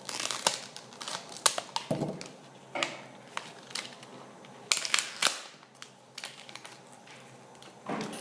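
Lip balm blister pack being pried open and crumpled by hand: a run of sharp plastic cracks and crackles, thickest in the first second or so and again about five seconds in.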